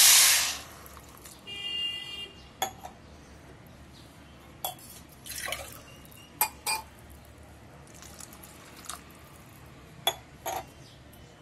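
Water poured from a glass into a hot steel pot of roasted broken wheat and vegetables: a loud splashing rush for about the first half second, then faint scattered pops and crackles as the water settles and bubbles in the pot.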